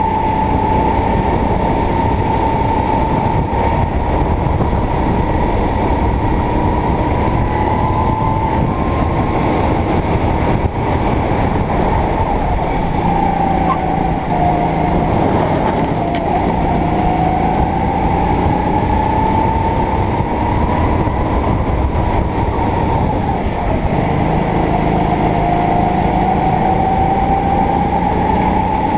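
Sodi kart's engine running hard on track, its pitch dropping twice as it slows for corners, around halfway and again near the end, then climbing back as it accelerates. A steady rushing noise runs underneath.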